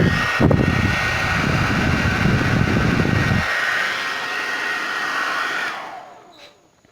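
Suzuka hair dryer running with a steady high motor whine and hiss of blown air, its repaired power switch now working. Airflow buffets the microphone for the first three or four seconds. The dryer is switched off about six seconds in and goes quiet.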